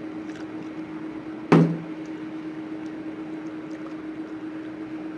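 A single hard knock about one and a half seconds in, over a steady low hum.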